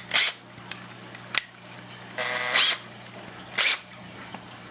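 Makita cordless drill's keyless chuck being opened and tightened onto a new drill bit: a few sharp clicks and short ratcheting, whirring bursts, the longest about two seconds in.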